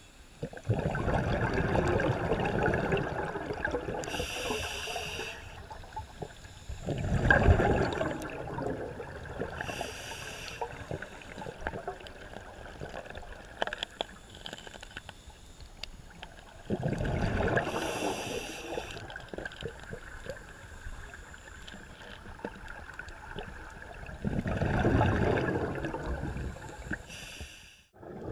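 Scuba regulator breathing recorded underwater: short high hisses of inhaled air alternating with louder rushing bursts of exhaled bubbles, about four breaths.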